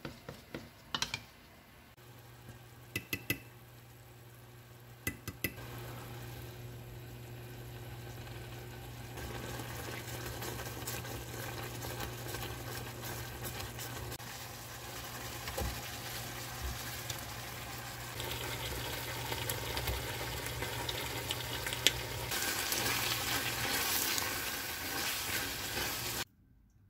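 A few clinks of a wooden spoon against a glass measuring cup as a starch slurry is mixed. Then a pan of eggplant and minced meat in sauce simmers and bubbles while it is stirred with a silicone spatula, over a low steady hum; the bubbling grows louder near the end and cuts off suddenly.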